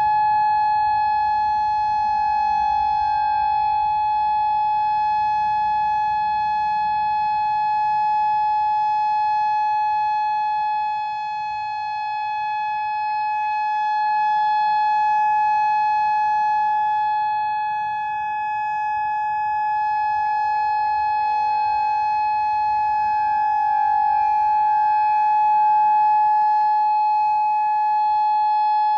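Federal Signal RF100 outdoor warning siren sounding its steady alert signal: one held tone that never changes pitch, swelling and dipping slightly in loudness. It is sounding for a test, not an emergency.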